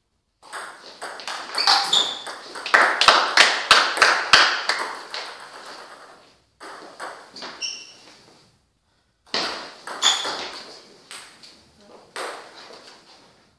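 Table tennis ball clicking against paddles and the table in quick rallies, the hits coming in runs with short pauses between points.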